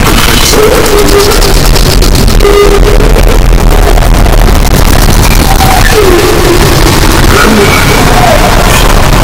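Harsh noise music: a constant, very loud wall of distorted noise, with a few short pitched squeals sliding up and down through it.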